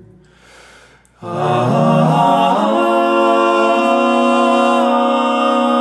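Several voices singing a wordless held chord in close harmony. It comes in about a second in after a quiet moment, slides briefly into place, then holds steady.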